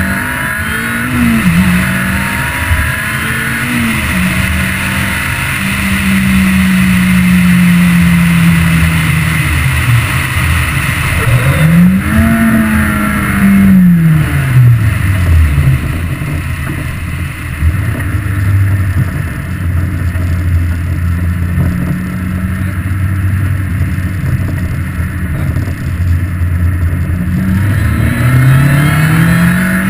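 Ariel Atom's supercharged Honda four-cylinder engine revving up and dropping back through the gears, with a sharp rise and fall in the middle and a long low steady stretch before it climbs again near the end. A steady rush of wind noise sits under it from the open cockpit.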